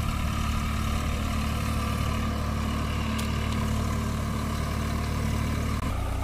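Swaraj 744 FE tractor's three-cylinder diesel engine running steadily under load as the tractor drives through wet mud. The engine note changes abruptly near the end.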